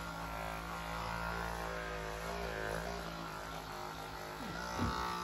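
Caresmith Charge Flex cordless percussion massage gun running at its highest intensity setting, level 32: a steady motor buzz.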